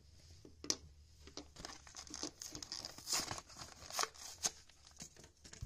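A Hot Wheels blister pack torn open by hand: the plastic blister crackles and the cardboard card rips as it is peeled away, in an irregular run of crackles with a few sharper rips.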